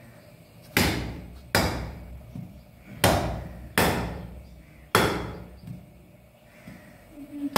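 Large knife chopping raw goat meat on a cloth spread over a concrete floor: five sharp chops at uneven intervals, each fading quickly, with another near the end.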